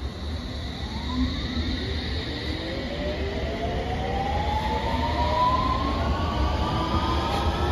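London Underground S7 Stock train pulling out of the platform. Its traction motors whine in several tones that rise steadily in pitch as it accelerates, growing louder over a low rumble.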